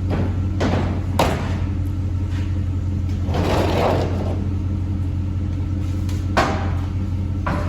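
Steady low mechanical hum with a few sharp knocks and clanks, one about a second in and two more near the end.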